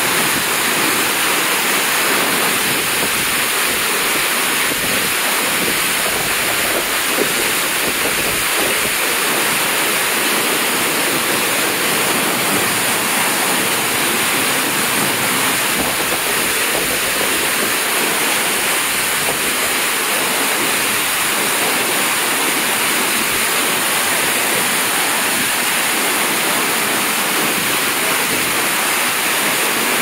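A large waterfall in heavy flow, a wide curtain of water crashing into its plunge pool: a loud, steady rush with no breaks.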